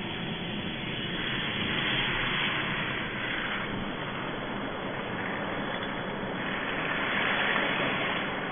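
Steady rushing noise of a car driving on a flooded, wet road, heard from inside the cabin: engine and tyre hiss. It swells louder about two seconds in and again near the end.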